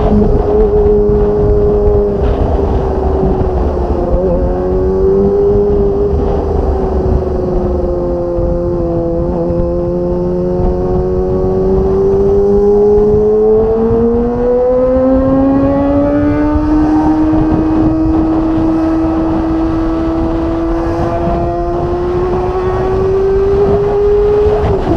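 Kawasaki ZX25R's inline four-cylinder engine running at high revs through a Magna aftermarket exhaust while riding. The pitch sags a little, climbs steadily about halfway through, holds, then rises again and drops suddenly at the very end as the throttle is closed or a gear is changed, with wind rumble underneath.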